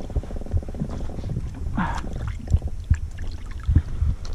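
Irregular low thumps of small waves slapping against an inflatable boat's hull. A steady hum of several tones runs through the first second, and there is a short higher sound about two seconds in.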